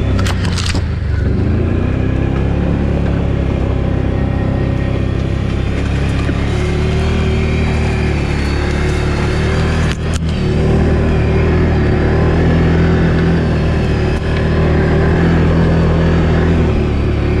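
Can-Am Outlander 1000 XMR ATV's V-twin engine running under steady throttle off-road, its pitch shifting a little, with a sharp knock just after the start and another about ten seconds in.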